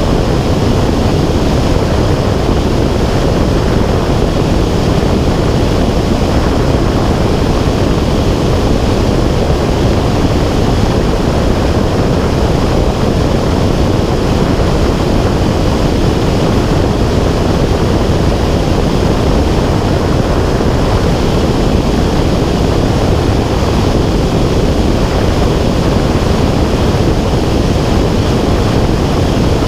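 Loud, steady wind rumble buffeting an action camera's microphone in flight, with no change throughout.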